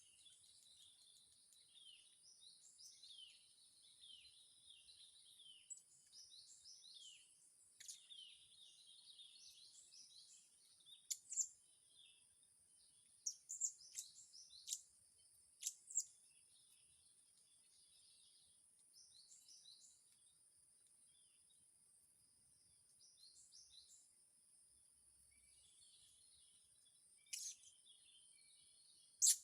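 Blue-crowned hanging parrots (serindit) giving faint, high, shrill chirps in quick series, with several sharper, louder calls around the middle and near the end. A steady high tone runs behind them.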